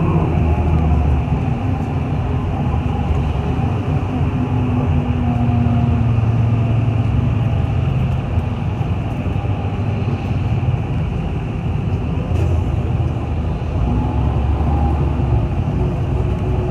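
City bus in motion, heard from inside the cabin: a steady rumble of engine and road noise, with a drone that slowly shifts in pitch as the bus changes speed.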